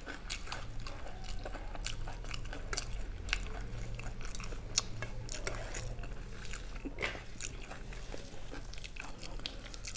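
Close-up eating sounds: chewing and crunching crisp deep-fried fritters (Bengali bora) with rice, with many small crisp clicks, over a low steady hum.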